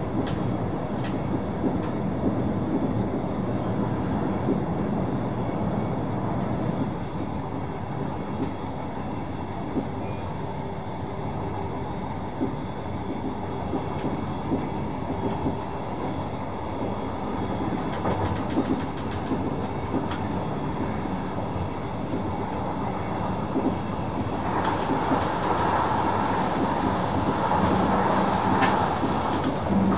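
VIRM double-deck electric train running at speed, heard from the driver's cab: a steady rumble of wheels on the rails with a few sharp clicks. About 25 seconds in, a higher-pitched running noise grows louder.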